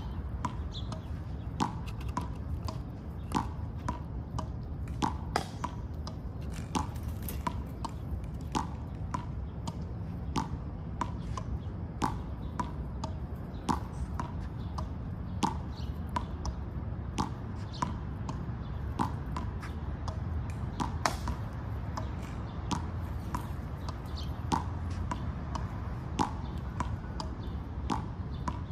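Squirrel cracking and gnawing in-shell peanuts: sharp, irregular cracks of shell, one or two a second, over a steady low rumble.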